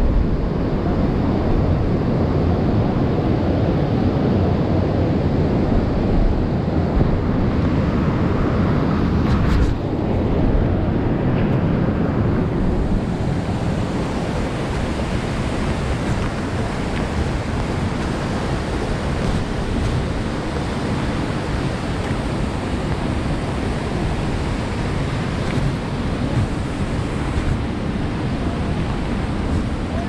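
Deep, steady rushing roar of a waterfall, with a couple of faint knocks about ten seconds in.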